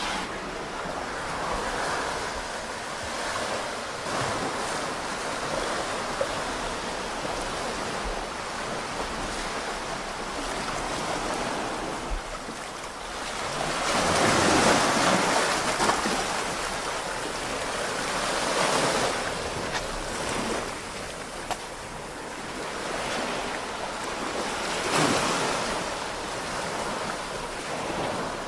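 Small waves washing onto a shallow beach, a steady wash that swells and falls, loudest about halfway through, with some wind on the microphone.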